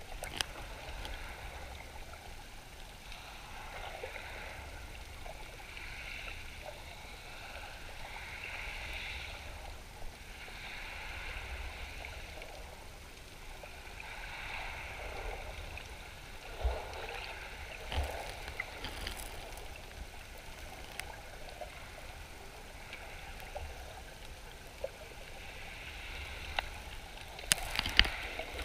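Sea water heard underwater through a camera housing just below the surface: a steady muffled wash and swish that swells and fades every second or two. A few sharp clicks and pops come through, with a louder cluster of them near the end.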